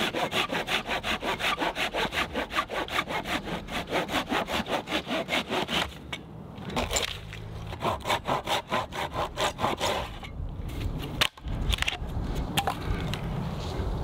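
Hand saw cutting through wood in fast, even strokes, about four a second, with two short pauses. One sharp knock comes near the end.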